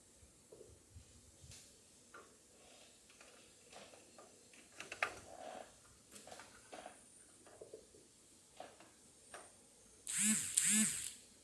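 Small scattered clicks and handling noises as a RAM module is fitted into a desktop motherboard slot. Near the end come two short, loud pitched sounds about half a second apart, of unknown source.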